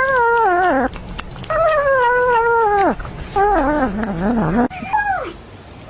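Kitten mewing while eating, four drawn-out calls in a row, each sliding down in pitch at its end; the third wavers up and down. A few faint clicks come between the first two calls.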